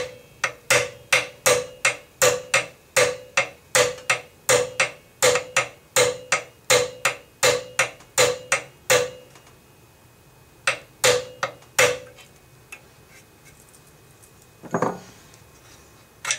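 Hammer tapping a steel starter punch to drive the forward assist roll pin into an AR-15 upper receiver. Steady taps come about three a second for some nine seconds, each with a short metallic ring, then three more taps after a pause. A single duller knock comes near the end.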